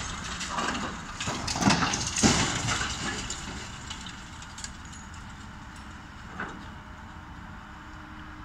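High-reach demolition excavator breaking concrete with its crusher jaws: loud cracking and crunching crashes in the first three seconds. After that the machine's engine runs steadily, with one knock about six seconds in.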